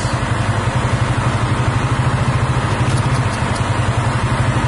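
A steady, rapidly pulsing engine drone, low-pitched, with no change in pitch or loudness.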